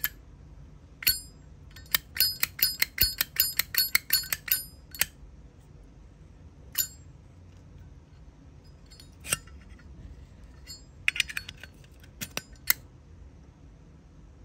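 Sharp metal clicks and clinks of a Zippo-style lighter being handled: a quick run of about a dozen ringing clicks in the first few seconds, then scattered single clicks and a short cluster near the end.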